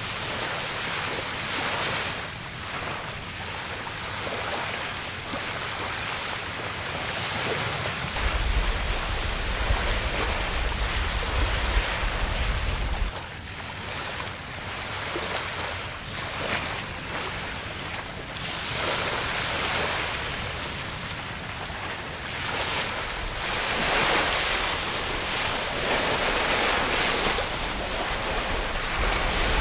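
Wind blowing across the microphone over the wash and slap of choppy harbour water, with a heavy low wind rumble for about five seconds near the middle that cuts off abruptly.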